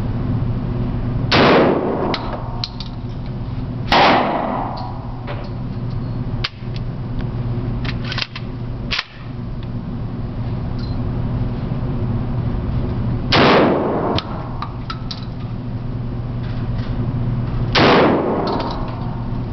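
Remington 12-gauge semi-automatic shotgun firing four shots of buckshot, each with a short echoing tail: two shots about two and a half seconds apart, a pause of about nine seconds, then two more about four and a half seconds apart. Smaller sharp clicks and knocks fall between the shots, over a steady low hum.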